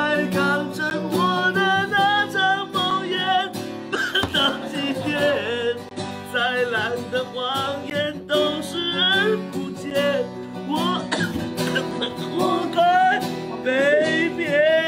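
A man singing a Mandarin pop song, accompanied by an acoustic guitar.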